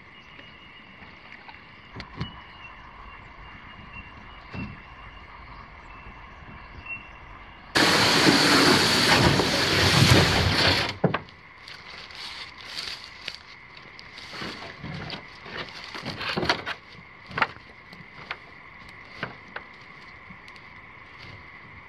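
A canoe is paddled on calm water, with a few soft paddle knocks over a steady insect drone. About a third of the way in there is a loud burst of noise lasting about three seconds. Then come scattered sharp snaps and short rustles of twigs and scrub being handled beside the beached canoe, while the insects keep droning.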